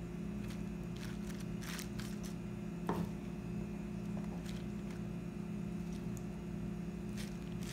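Marinated corn and black bean relish being spooned onto lettuce: scattered soft wet squishes and light taps of the spoon, the loudest about three seconds in, over a steady electrical hum.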